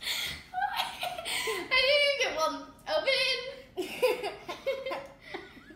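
Two girls laughing and giggling, in several bursts of high-pitched laughter.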